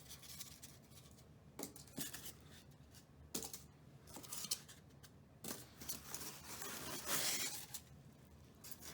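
Styrofoam packing being dug through and pulled about inside a cardboard box: scattered scrapes and taps, with a longer rustling scrape about seven seconds in.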